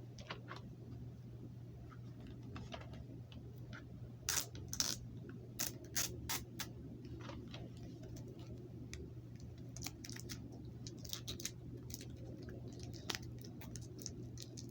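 Plastic wrapping and security tape being peeled and pulled off a DVD case: irregular crinkles and clicks, with a cluster of louder crackles about four to six seconds in, over a steady low hum.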